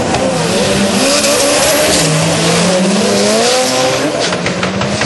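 Ford Focus drag car's engine running hard during a quarter-mile pass, its pitch climbing and dropping.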